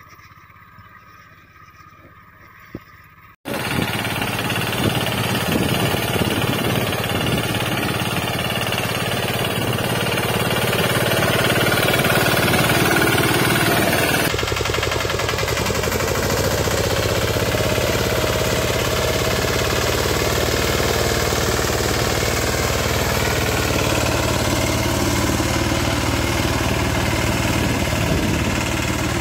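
A motorcycle-engined 'bullet' mini tractor running loudly with a fast, even beat, cutting in suddenly about three and a half seconds in after a quieter stretch. About halfway through, the sound changes to a second such tractor working a plough.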